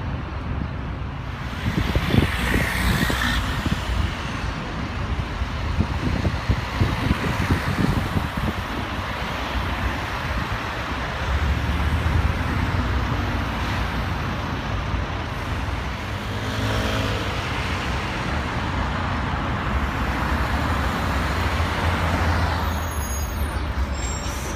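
Road traffic on a busy city street: a steady hum of cars and heavier vehicles, with several louder vehicle passes swelling and fading.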